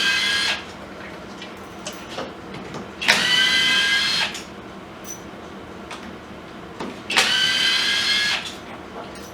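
Power drill spinning out the clutch spring-plate bolts on a motorcycle clutch, in short runs of about a second each: one ending just after the start, then two more about four seconds apart, each whining up to speed quickly. Small clicks of bolts and parts being handled fall between the runs.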